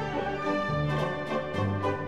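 Background orchestral music with bowed strings.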